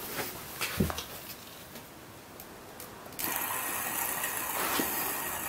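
Plastic fidget cube-spinner set down on a hard plastic CD case with a knock, then, about three seconds in, a steady mechanical whirring buzz starts suddenly as it spins.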